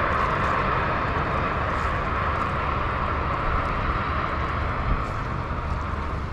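A steady engine drone over low rumbling wind noise, loudest at the start and fading near the end.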